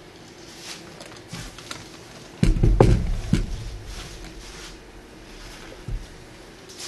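Handling of a wet paint-covered canvas on a wire rack: a single low thump with a brief rattle about two and a half seconds in as the tilted canvas is set back down, amid faint taps and rustles.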